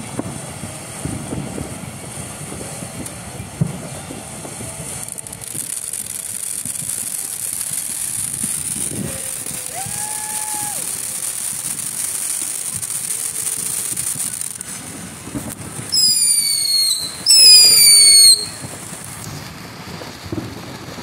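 Ground fountain firework erupting with a steady high hiss and crackle of sparks. Near the end come two loud shrill whistles, each about a second long.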